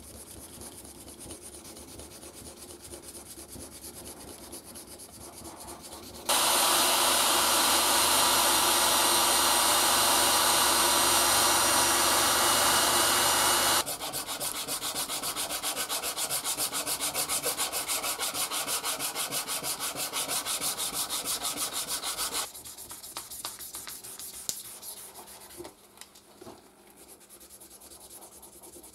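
Hand sanding of a red micarta knife handle: sandpaper rubbing back and forth. About six seconds in, a very loud steady rushing noise starts abruptly and cuts off after about seven seconds. It gives way to a stretch of rapid, louder sanding strokes, then the sanding turns quieter with a few light clicks.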